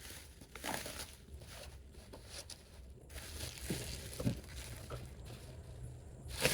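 Faint rustling, crinkling and light knocks of model-kit packaging being handled.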